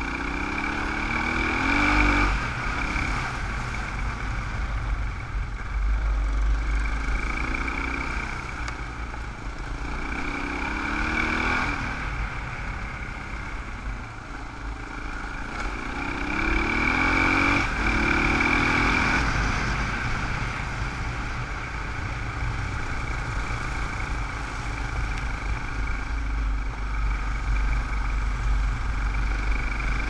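Dual-sport motorcycle engine running under way. Its pitch climbs as it accelerates and drops back at gear changes several times, with wind rumbling on the helmet camera's microphone.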